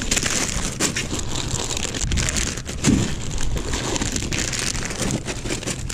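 Plastic soft-bait packages crinkling and rustling as they are rummaged through and pulled out of a backpack, a continuous irregular crackle.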